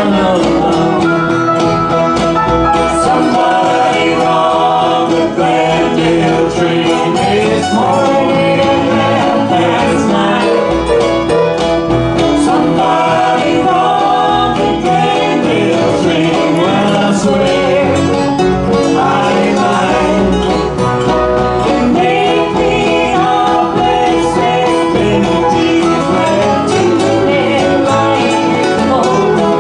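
Live acoustic band playing a bluegrass-style song: several acoustic guitars strumming and picking, with singing.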